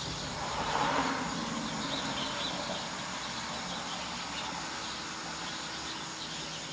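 Crickets chirping faintly over a low steady hum, with a soft swell of noise about a second in.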